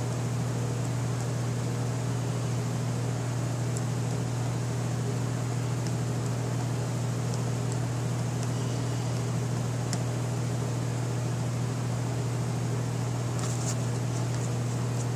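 Steady low machine hum with a constant low pitch, with a few faint clicks from small parts being handled.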